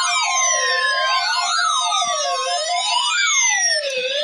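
Electronic warning siren wailing up and down in quick cycles of about a second and a half, sounding for a tornado drill. A steady high tone runs under it and stops about a second in.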